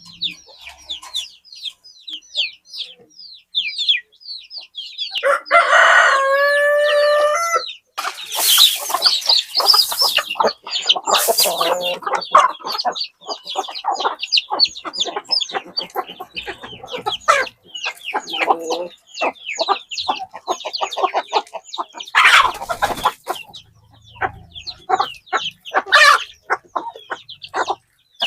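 Chickens clucking and chirping, with a rooster crowing once about five seconds in, one long call lasting a couple of seconds.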